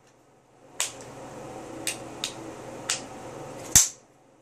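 Metallic clicks of an M4-type AR rifle's trigger group and action being worked during a post-cleaning function check. Five sharp single clicks, spaced unevenly, the last and loudest near the end with a dull thud under it.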